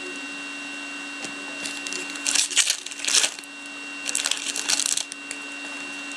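Foil trading-card pack wrapper crinkling and tearing as it is opened by hand, in two bursts of rustling about two and four seconds in, over a steady electrical hum.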